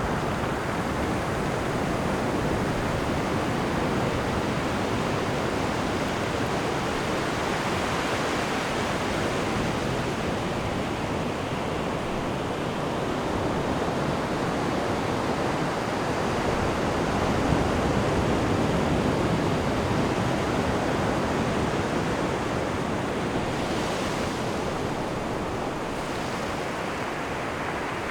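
Ocean surf breaking and washing on a beach: a continuous rushing wash that swells and eases, louder about two-thirds of the way through, with a hissier wash near the end.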